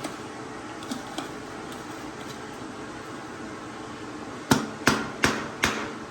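Four sharp metallic knocks, a little over two a second, about four and a half seconds in, with a few faint clicks earlier. These are hand tools working on the recoil starter's mounting bolts, over a steady low hum in the shop.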